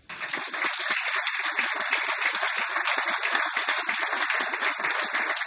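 Audience applause: a roomful of people clapping, starting suddenly and holding steady.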